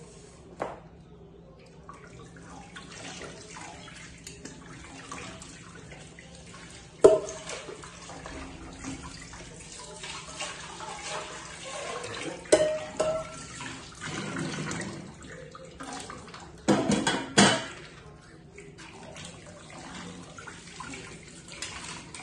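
Kitchen tap running while a large pot is washed in a sink, with a few sharp clanks of the pot against the sink, the loudest about a third of the way through and a double one later on.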